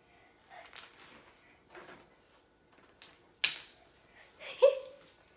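Wooden Jenga blocks clicking and tapping as they are handled on the tower, with two sharper, louder knocks about a second apart near the end.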